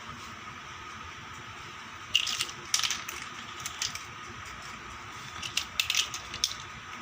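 Plastic toy-kitchen pieces and their packaging being handled: two short spells of crinkly rustling and clicks, about two seconds in and again about five and a half seconds in, over a steady faint hiss.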